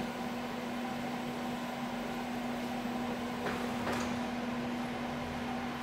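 Steady fan-like hum with a single constant low tone, the room tone of running equipment. A faint soft rustle comes about three and a half seconds in.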